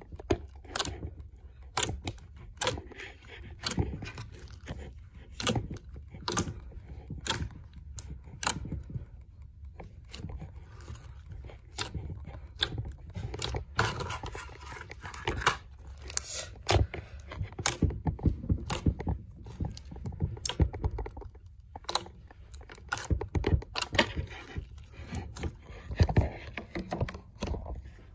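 Thick pink slime with small beads mixed in, squeezed and kneaded by hand, making a quick, irregular run of sharp clicks and pops. Described as very satisfying and clicky.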